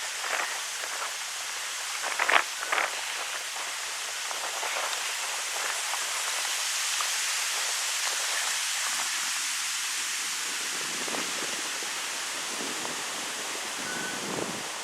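Wind blowing through birch trees: a steady hiss of rustling leaves that swells a little in the middle, with a couple of brief sharper rustles about two seconds in.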